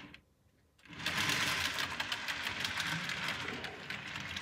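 N gauge model train rattling along the track as it is pushed by hand, a dense run of rapid clicks from the wheels over rail joints and pointwork, starting about a second in. It is being pushed round a very tight loop, unpowered, and runs through without derailing.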